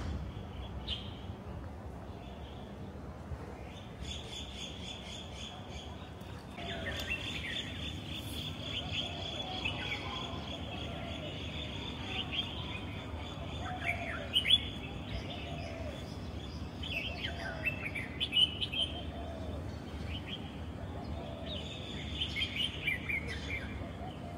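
Birds chirping and singing, many high chirps overlapping, with some lower repeated calls among them.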